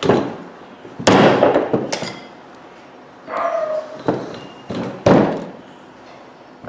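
A dog barking in loud separate barks, about four, roughly one to two seconds apart.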